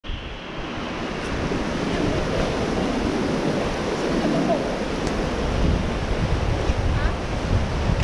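Strong, fast river current rushing over rocks and around an inflatable raft: a steady, even roar of water. Wind buffets the microphone, with a low rumble that grows heavier in the second half.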